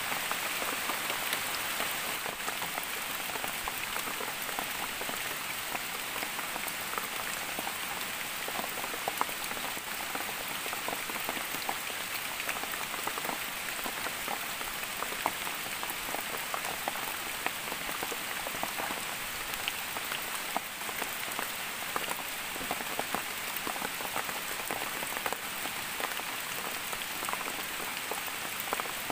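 Steady rain falling, with many scattered drops heard as small separate taps.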